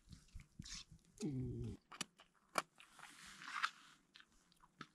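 A person eating freshly cooked instant noodles: sharp clicks of the utensil against the container, chewing and a slurp a few seconds in, and a short hummed "mm" about a second in.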